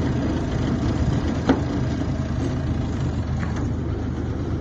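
Small engine on a motorised bathtub idling steadily, still running after being told to shut it off, with one sharp click about a second and a half in.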